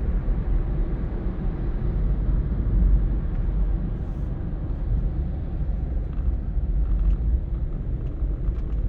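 Steady low rumble of road and engine noise from a car on the move.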